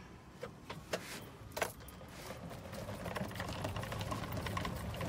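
A few separate knocks, then a rapid mechanical rattling with a low hum that grows steadily louder from about halfway through.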